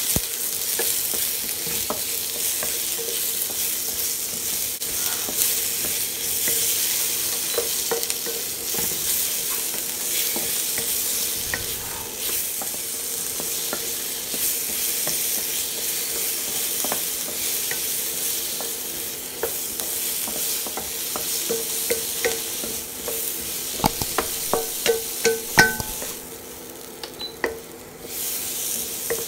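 Tomato wedges and spring onion whites sizzling in a hot non-stick wok while a wooden spatula stirs them, with scattered taps of the spatula on the pan. Near the end comes a quick run of louder taps, then the sizzle drops away for a couple of seconds before picking up again.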